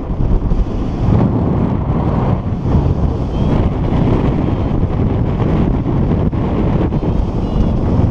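Rushing wind on the microphone of a camera on a paraglider in flight, loud and buffeting in gusts.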